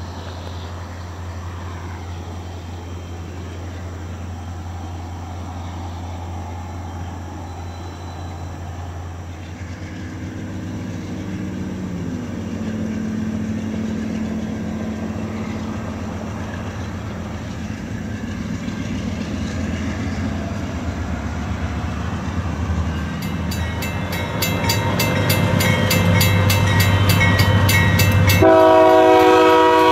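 Diesel freight locomotives, a GE AC44CW and an EMD SD40-2, drifting slowly closer, their engine note stepping down about twelve seconds in, then fast even clicking of wheels over the rails as the train nears. Near the end a locomotive air horn sounds loudly, a chord of several notes.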